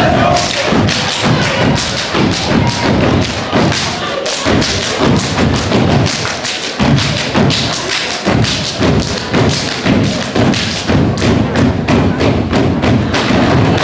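A step team stepping in unison on a stage: feet stomping together in a quick, steady, driving rhythm, with a brief break in the beat about seven seconds in.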